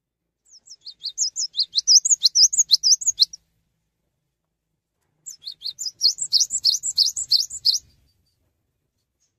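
Cinereous tit (gelatik batu) singing two rapid phrases of high, sweeping whistled notes, about six notes a second, each phrase about three seconds long with a short pause between.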